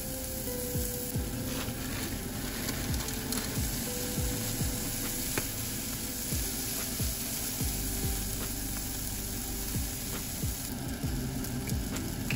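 Onions, then mixed vegetables and rice, sizzling as they fry in a non-stick frying pan. A silicone spatula stirs them and scrapes against the pan in many short strokes.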